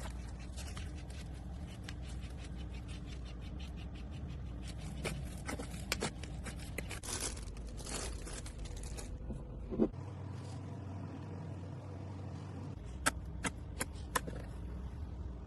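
Slime being squeezed and worked by hand, making a dense run of small crackling clicks for the first nine seconds, then a few separate sharp pops near the end.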